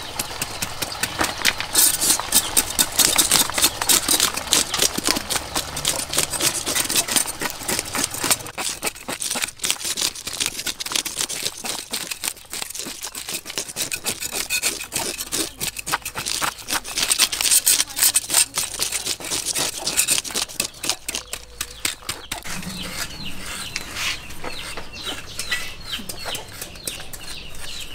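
Knife blades scraping the scales off large whole fish on a wooden chopping block: a fast, raspy run of scratching clicks. About three-quarters of the way through the scraping dies down and hens cluck.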